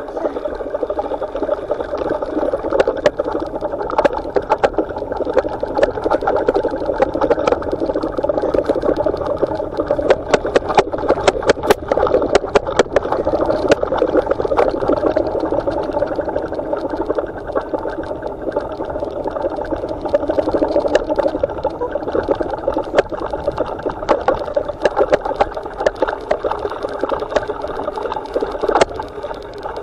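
Bike ride over a bumpy dirt and leaf-covered trail: steady ride noise, with frequent sharp knocks and rattles as the bike jolts over bumps.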